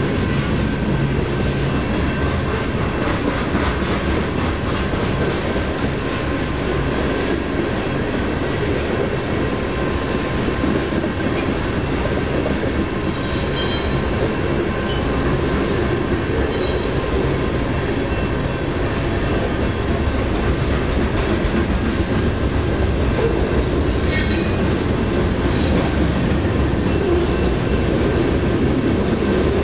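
BNSF manifest freight train passing at speed, its wheels rumbling and clattering steadily on the rails. Short high wheel squeals come a few times, twice near the middle and twice later on.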